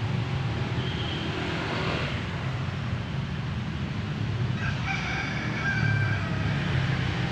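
A rooster crowing once, about five seconds in, over a steady low rumble.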